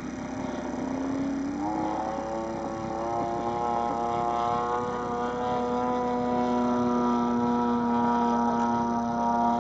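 Engine and propeller of a radio-controlled aerobatic model airplane droning overhead. The pitch climbs about a second or two in, then holds steady and grows louder as the plane comes nearer.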